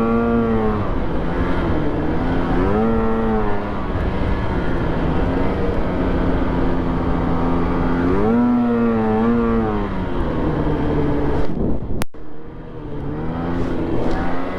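Polaris snowmobile's two-stroke engine running under way on a snow trail, with the revs rising and easing off several times as the throttle is worked.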